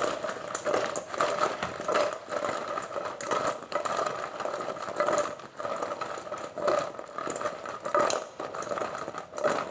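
Sauced fried chicken wings tossed in a stainless steel mixing bowl: the pieces slide and scrape against the steel in repeated shakes, roughly one a second, while the bowl rings throughout.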